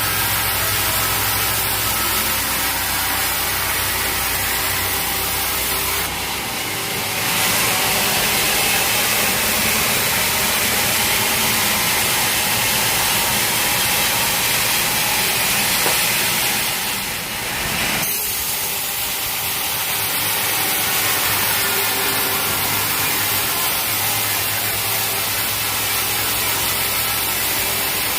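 Sawmill saw running and cutting through a teak log, over the steady hum of its motor. A higher hiss joins about six seconds in and drops away again around eighteen seconds.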